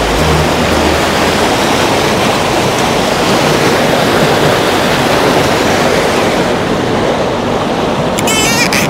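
Water from a decorative water feature rushing steadily as it runs down a zigzag channel instead of falling straight.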